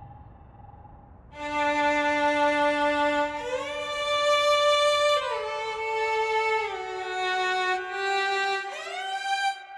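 Violin music: a few long held notes joined by slow slides up and down between them, starting about a second in.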